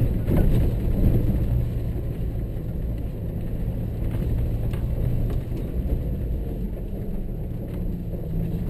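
A 4x4's engine running steadily at low speed as it drives over a sandy, rutted dirt track, heard from inside the cab, with a few light knocks and rattles from the vehicle over the bumps.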